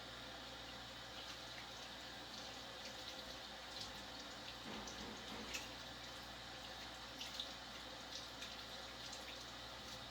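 Faint steady rush of running water, as from a tap or pipes, with a few sharp drip-like ticks scattered through it.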